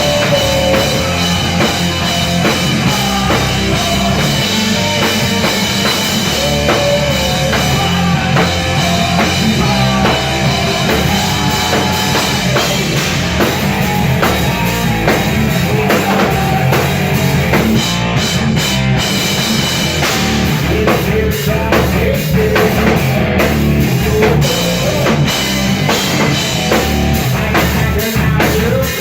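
A rock band playing live: a drum kit keeping a steady beat under distorted guitar, loud and continuous.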